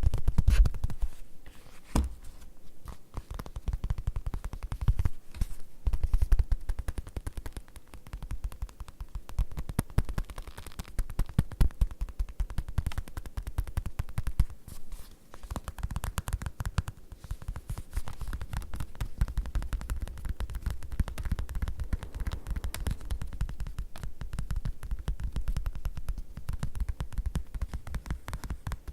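Fast tapping on leather: a dense run of quick, dull taps with a few short pauses.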